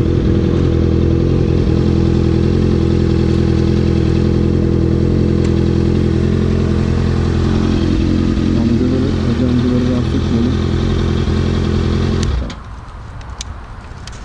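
Honda sport motorcycle engine running steadily at low revs, then cutting off suddenly about twelve seconds in. A few light clicks follow.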